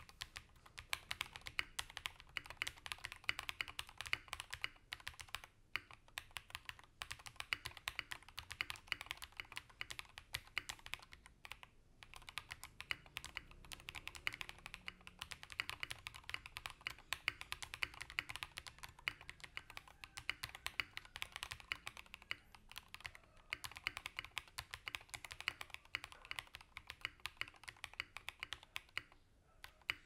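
Steady, fast typing on a custom mechanical keyboard fitted with lubed Durock POM switches, a POM plate and Akko XDA keycaps. The dense run of keystrokes has a few short pauses and stops just before the end.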